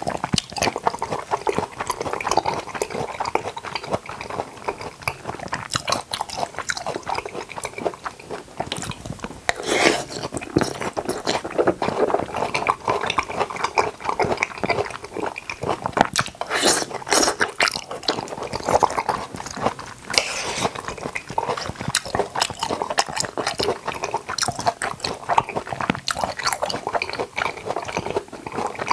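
Close-miked chewing and biting of ripe jackfruit, a steady run of wet, sticky smacks and crackles with a few louder bites along the way.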